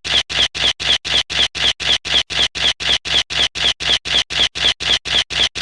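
A harsh scratching noise chopped into even pulses, about four a second, each cut off sharply.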